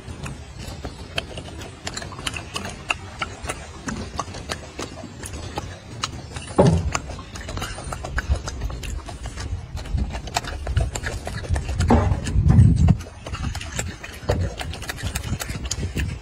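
Golden snub-nosed monkey eating fruit close to the microphone: an irregular string of sharp clicks and smacks from peeling and chewing. Two louder low thumps come about six and a half seconds in and again around twelve to thirteen seconds in.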